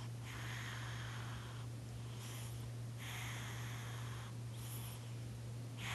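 Domestic cat snoring in its sleep with slow, even breaths: a longer raspy breath followed by a shorter, higher hiss, the cycle coming round about every three seconds.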